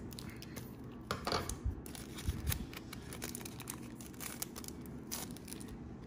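Trading cards being handled and flipped through by hand: light rustling and clicking of card stock, with a few brief louder scrapes.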